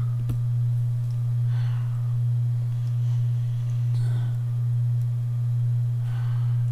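A loud, steady low electrical hum, one unchanging tone, with faint soft rustles about a second and a half in, around four seconds in and near the end.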